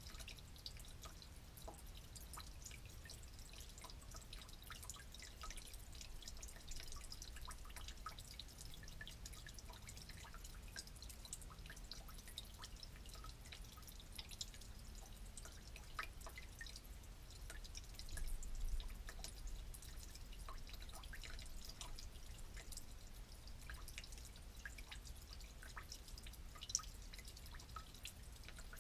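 Really old gasoline leaking from a broken valve on an old generator, dripping into a drain pan of gas below: many small, irregular drips in quick succession, faint. A brief low rumble comes about two-thirds of the way through.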